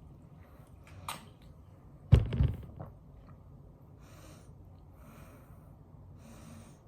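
A man's throat and breath sounds as he holds back a burp after drinking sparkling water: a small click about a second in, a loud, low, throaty sound about two seconds in, then three breaths out.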